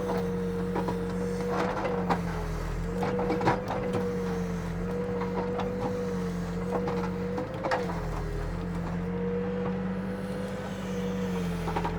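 Backhoe's diesel engine running steadily under throttle, its pitch dipping briefly a few times as the hydraulics work the bucket to pack down fill dirt, with scattered light knocks and clanks.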